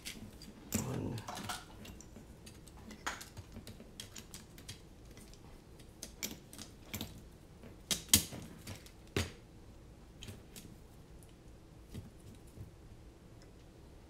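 Scattered light clicks and taps of hands handling a small quadcopter frame and setting screws into its arms, with two sharper knocks about eight and nine seconds in.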